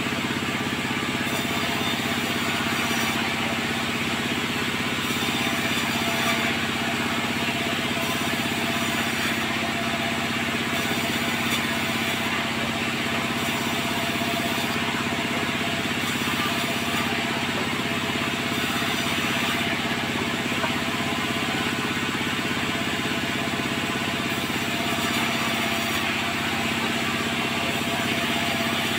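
Sawmill machinery running steadily: an engine-driven saw setup holding a constant hum at an even pitch.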